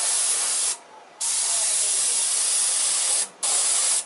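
Airbrush spraying paint in short trigger-controlled spurts: an even hiss that stops briefly twice and starts again.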